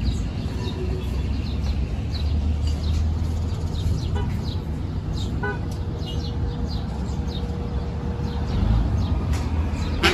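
Outdoor background: a steady low rumble, with small birds chirping now and then.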